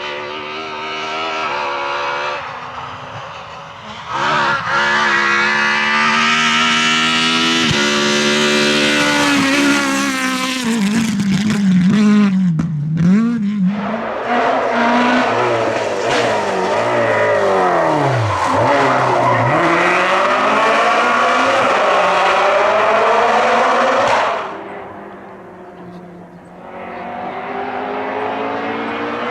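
Naturally aspirated Groupe F2000 rally car engine at full throttle, climbing through the revs and changing up, then lifting sharply and dropping through the gears with swooping falls in pitch before pulling away again. The sound fades out about three quarters of the way through, and an engine builds up again near the end.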